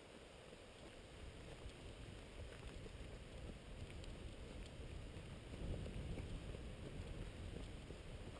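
Low rumble of wind and movement on the microphone of a camera carried along a gravel trail, growing a little louder, with a few faint ticks.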